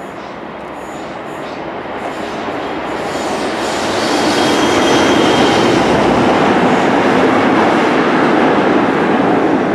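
A convoy of British Rail diesel locomotives, led by a Class 40 with its 16-cylinder English Electric engine, runs past close by. Engine noise and wheel rumble grow louder as it approaches and stay loud as the locomotives pass. A faint thin whistle sounds about three to four seconds in, typical of the Class 40's turbocharger whistle.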